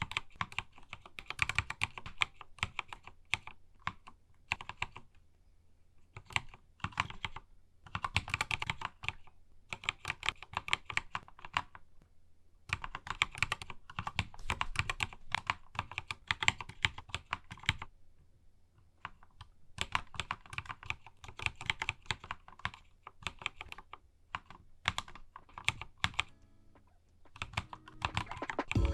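Typing on a Keychron K2 mechanical keyboard fitted with Akko Matcha Green switches: quick runs of key clicks in bursts of a few seconds, broken by short pauses.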